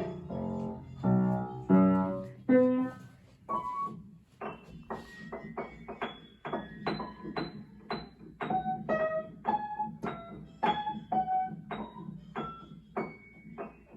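Background piano music: a few chords, then slow single notes at about two a second, each dying away.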